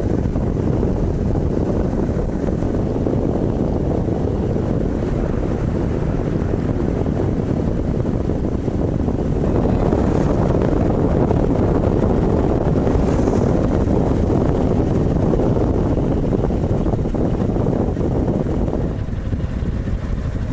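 Wind rushing over the microphone together with the engine and road noise of a Honda motorcycle with sidecar riding at highway speed. It grows louder about nine seconds in and eases off near the end as the bike slows.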